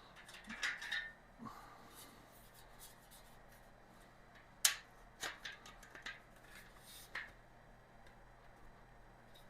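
Light clicks and rattles of storage shelf parts being handled and fitted together by hand, a few scattered knocks with the sharpest about five seconds in.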